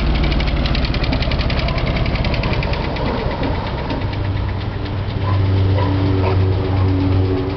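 Buick Regal lowrider's engine running as the car pulls away. There is a fast ticking over the engine sound at first, and a steadier, deeper drone from about four seconds in.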